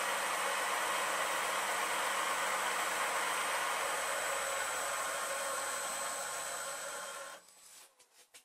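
Bridgeport milling machine's spindle and motor running steadily, with a thin high squeak from the pointed centre riding too low in the workpiece's hole. The machine is switched off about seven and a half seconds in and the sound dies away.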